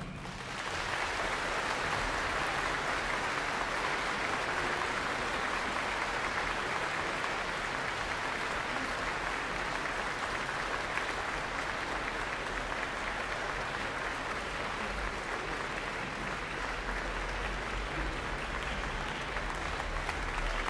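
Concert audience applauding in a large hall, the clapping swelling within the first second after the music ends and then holding steady.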